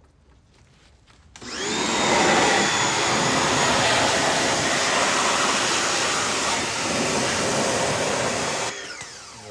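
A 2050-psi Sun Joe electric pressure washer starts up about a second and a half in and runs steadily, its motor and pump whining under the hiss of the water jet being sprayed into a car's engine bay. The sound eases off near the end.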